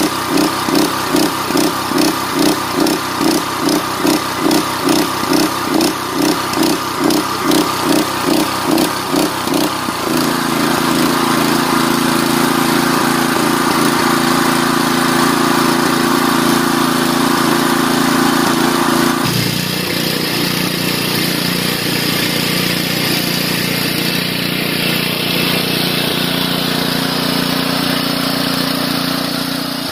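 The petrol engine of a 3-inch portable water pump running under load, pumping water to flush sand out of a 63 mm HDPE water main. For the first ten seconds it throbs about two and a half times a second, then runs steadily. Partway through, the sound changes abruptly to a lower engine tone mixed with the rush of water gushing from the open pipe.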